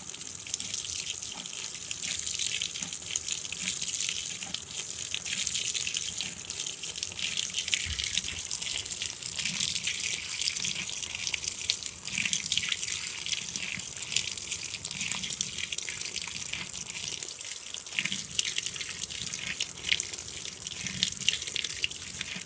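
A 2012 LG top-load washing machine filling its tub on the delicates cycle after sensing a light load: a steady hiss of water pouring and splashing in, with a fine crackle.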